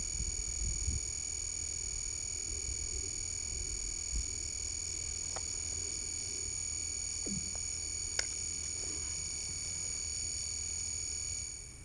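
A steady high-pitched whine made of several fixed tones, over a low rumble, with a sharp click about eight seconds in; the whine fades out near the end.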